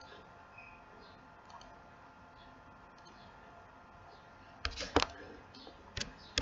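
Computer mouse clicking: a handful of sharp clicks starting about two-thirds of the way in, the loudest around five seconds, over a faint steady hiss.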